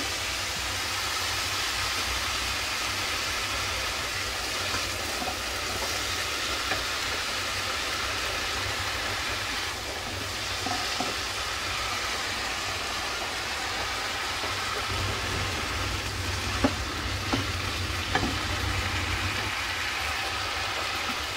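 Enoki mushrooms sizzling in an oiled non-stick frying pan as they are stirred with a silicone spatula, being sautéed until soft. A steady frying hiss over a low hum, with a few light clicks of the spatula near the end.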